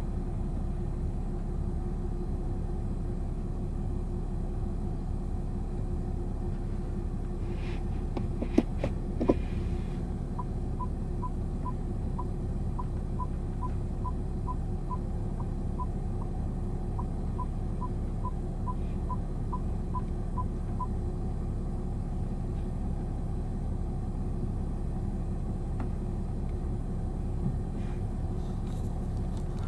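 Steady low rumble of the BMW 640d idling, heard from inside the cabin. Two sharp clicks come a little before ten seconds in. A run of short, even-pitched beeps follows at about two a second, their spacing shifting slightly, with a brief pause midway; these are typical of the parking sensors' warning beeps.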